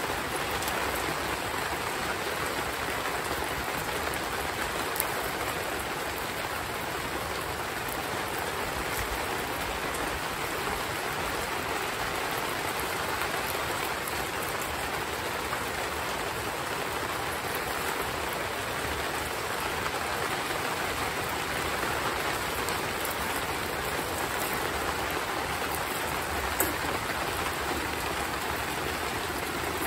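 Heavy rain falling steadily, an even hiss with a few faint clicks.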